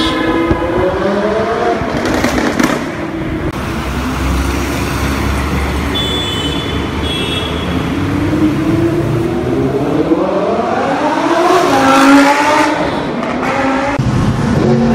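Supercar engines accelerating hard, their note rising through the revs twice: briefly at the start, then in a long climb from about eight to twelve seconds in.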